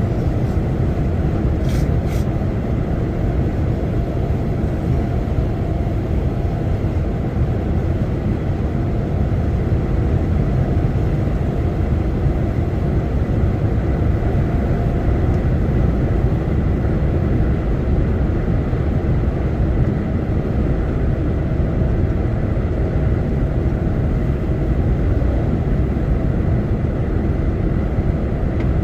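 Steady engine and road noise of a truck driving, heard from inside the cab, with two faint clicks about two seconds in.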